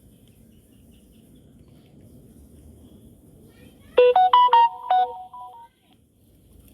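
A short electronic jingle of about half a dozen quick, stepped beeping notes, like a phone ringtone or notification tune, starting about two-thirds of the way in and lasting under two seconds over faint background noise.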